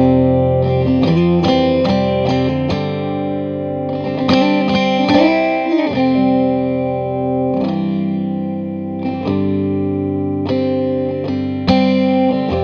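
Instrumental break in a song: a guitar picking single notes through effects over sustained notes, with a note bending in pitch about five seconds in.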